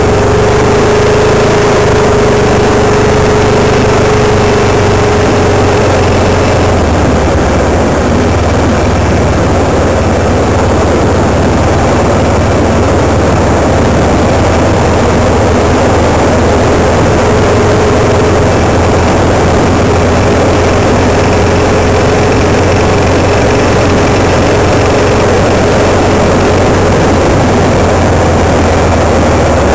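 Vehicle engine running steadily at low speed with road and wind noise, a steady whine coming and going.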